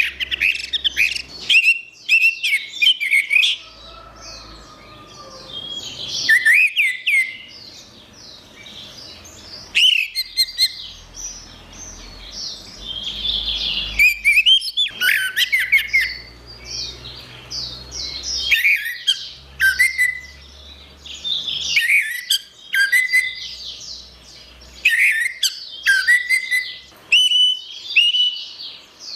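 Orange-headed thrush singing: a run of varied whistled and chattering phrases, each a second or two long, separated by short pauses.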